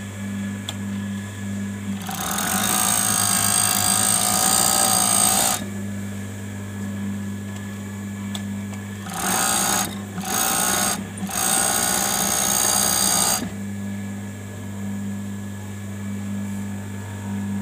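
Juki four-thread overlock machine stitching a test seam after its lower thread tension was tightened: one run of about three and a half seconds, then, after a pause, three short runs close together. A steady motor hum continues between the runs.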